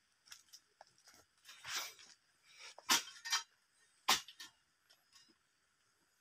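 Footsteps crunching through dry palm fronds and leaf litter: a scatter of sharp crackles and clicks, loudest a few times about three to four seconds in, with a brief rustle a little before two seconds.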